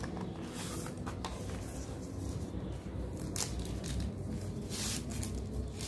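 Packaging rustling and crinkling as a small wrapped accessory is opened by hand, with a few short sharp crackles spread through.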